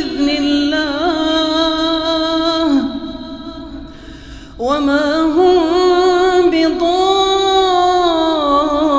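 A man's voice chanting Quran recitation (tajwīd) in long, drawn-out melodic notes. The voice trails off about three seconds in, pauses for breath, and picks up again about a second and a half later.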